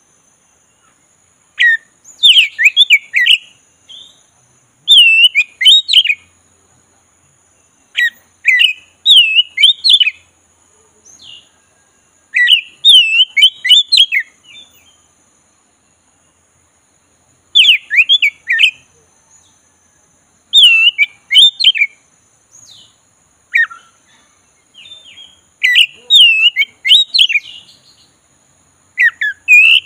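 Oriental magpie-robin of the black-breasted form singing: about nine loud phrases of quick, varied whistles, each a second or two long, with short pauses between them.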